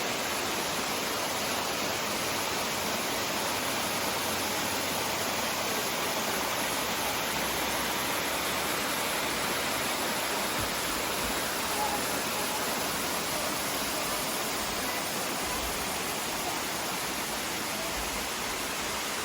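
Steady rush of water, like a waterfall or fast-running creek, holding an even level throughout.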